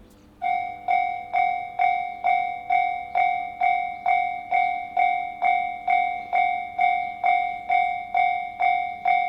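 Japanese railway level-crossing warning bell ringing at about two strikes a second, starting about half a second in. It signals that a train is approaching.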